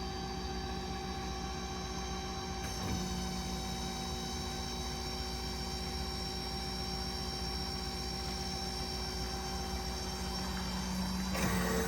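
Steady machine hum with several held tones, unchanging throughout.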